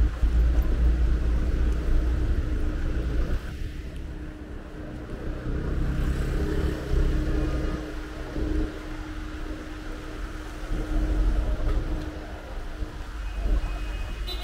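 Street traffic: a motor vehicle's engine running close by with a low rumble that swells and fades, and a steady hum through most of the stretch.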